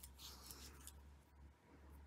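Near silence: a brief faint rustle in the first second as fingers handle the tatting thread and a plastic tatting shuttle, over a steady low hum.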